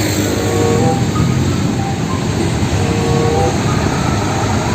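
Steady, loud rush of a water spray washing mud off a toy truck.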